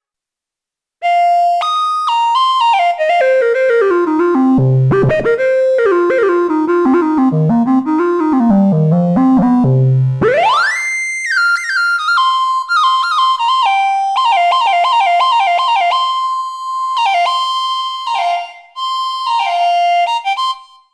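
ASM Hydrasynth digital wave-morphing synthesizer playing a factory preset, recorded direct. About a second in, quick stepped note runs fall in pitch, with two deep bass hits. Near halfway a fast upward glide leads into rapid repeated notes around one pitch with short dips below it.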